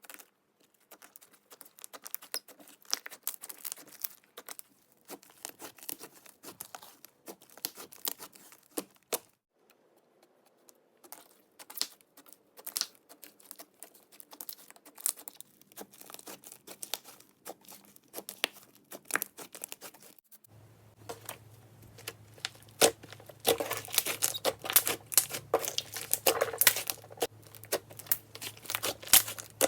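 Clay slime being mixed and squished by hand: dense sticky crackles and small pops. About two-thirds of the way in, a steady low hum comes in under it and the crackling grows louder.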